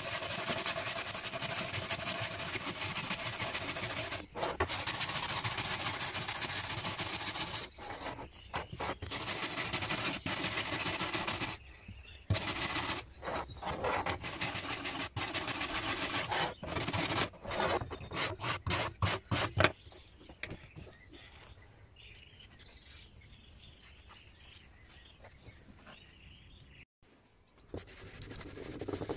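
A bristle brush scrubbing a rusty sickle blade during rust removal: rapid back-and-forth strokes in runs with short pauses. After about twenty seconds the scrubbing gives way to a much quieter stretch, and near the end rubbing on the blade starts again.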